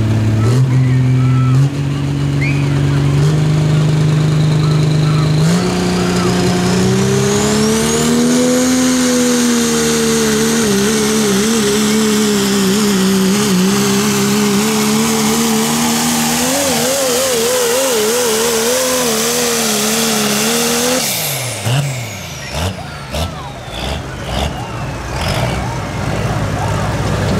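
A pulling vehicle's engine at full throttle on a pull. Its pitch climbs in steps at the launch, then holds high and wavers up and down as it drags the sled. About three-quarters of the way through, the throttle is cut and the engine note drops away.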